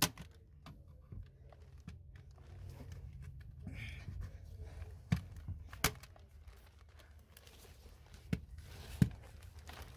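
A hand staple gun snapping staples about five times: once at the start, twice around five to six seconds in, and twice near the end. Between the snaps, soft rustling and crinkling of polyester underfloor insulation being handled.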